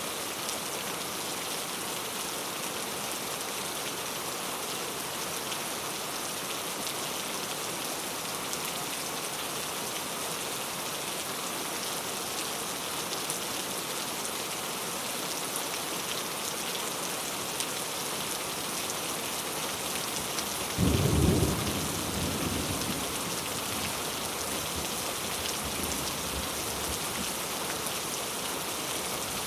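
Heavy rain falling steadily, with a single clap of thunder about two-thirds of the way through that rumbles away over a couple of seconds.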